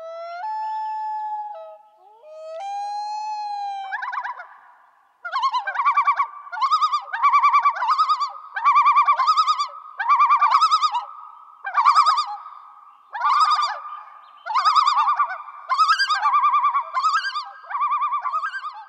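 A high, bird-like whistling: two held tones, the second rising into place, then a run of short trilling calls, roughly one a second, to the end.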